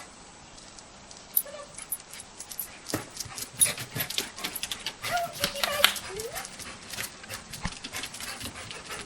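A dog whining and yelping in short bursts, over a busy patter of clicks and scuffles that starts about a second and a half in.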